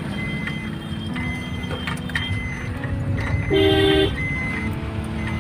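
Road vehicle running with a steady low engine and road rumble. A vehicle horn sounds one short blast about three and a half seconds in, and short high beeps repeat at intervals.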